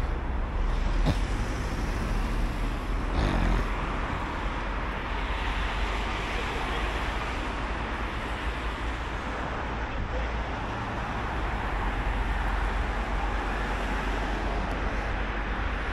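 Road traffic on a multi-lane city street: cars driving past, making a steady wash of tyre and engine noise with a deep rumble underneath.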